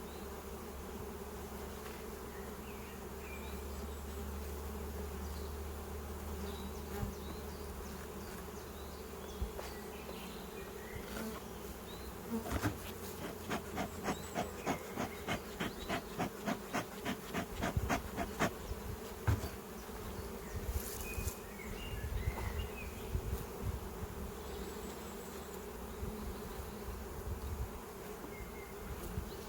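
Honeybees buzzing in a steady hum. Midway, a run of sharp, evenly spaced clicks, about four a second, lasts roughly six seconds.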